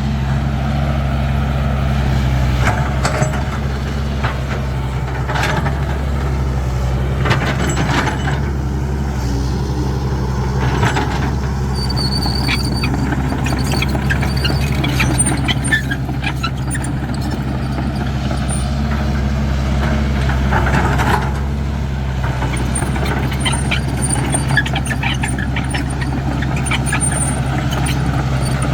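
Caterpillar 312 hydraulic excavator's diesel engine running steadily while it loads soil onto a truck, with scattered knocks and clanks and a brief high squeal about twelve seconds in.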